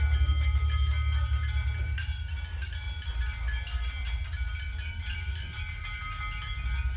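Experimental ensemble music: a deep steady low drone beneath many sustained high ringing tones and light metallic tinkling. It grows quieter through the middle and swells again near the end.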